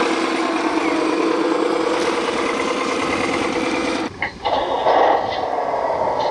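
Simulated diesel engine sound from a 1/14-scale hydraulic RC construction machine's sound unit running steadily. About four seconds in it briefly cuts out, then swells and falls back in pitch.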